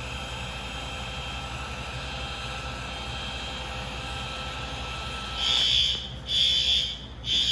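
A steady whirring blower, the heat gun used to heat a kitchen heat detector; about five and a half seconds in the detector trips and the fire alarm horns start sounding, a loud high tone pulsing on and off about once a second, three times and into a fourth.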